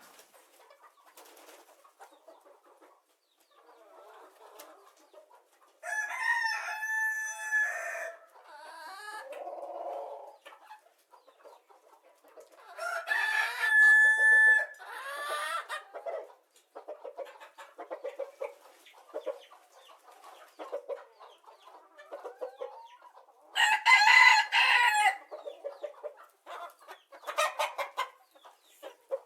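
Rooster crowing three times, each crow about two seconds long, with softer clucking between the crows.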